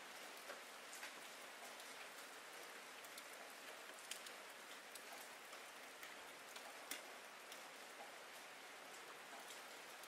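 Soft, steady rain: an even hiss of falling rain with scattered sharp ticks of single drops landing close by.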